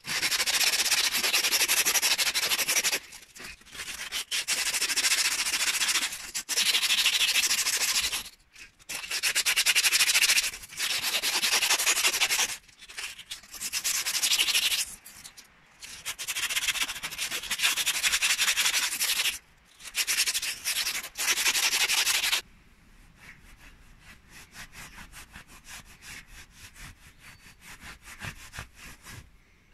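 Hand sanding the steel of a hatchet head with a strip of sandpaper worked inside the eye, a rapid rasping in long runs of back-and-forth strokes broken by short pauses. About 22 seconds in the sanding stops, and a much fainter rubbing follows as a cloth wipes the head.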